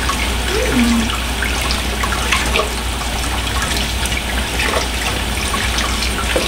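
Kitchen faucet running in a steady stream into a sink while a gutted squirrel carcass is rinsed out under it by hand, the water splashing off the meat.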